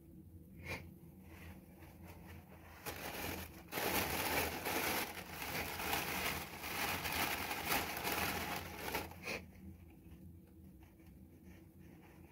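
Black plastic bag crinkling and rustling as it is handled, starting about three seconds in and running for about six seconds. Faint scratching and clicks come before and after.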